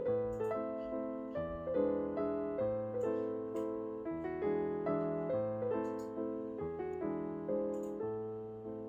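Gentle solo piano background music: a melody of short notes over slow, low chords, dipping in loudness near the end.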